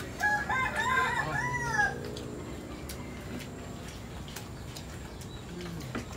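A rooster crowing once, a wavering call of under two seconds starting just after the beginning, over a steady background hiss.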